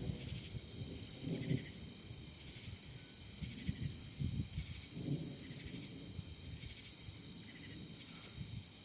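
Night chorus of crickets and other insects, a steady high-pitched trilling, with a few irregular low rumbles rising and fading over it.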